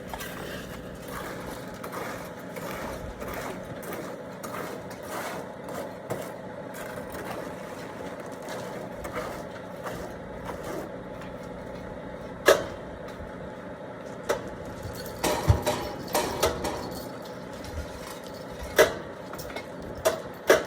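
Concrete mixer truck engine running steadily, with several sharp knocks in the second half.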